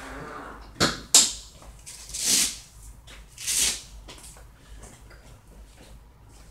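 Handling noise as the blanket and sling under the dog are moved: two sharp knocks about a second in, then two short rustling hisses.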